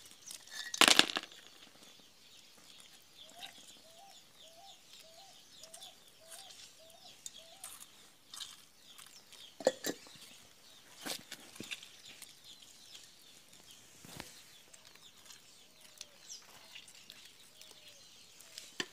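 Metal parts of an Anauger vibratory well pump knocking as they are handled and set down: one loud knock about a second in and a few lighter ones later. A hen clucks in a run of about eight short calls, roughly two a second, then again more faintly near the end.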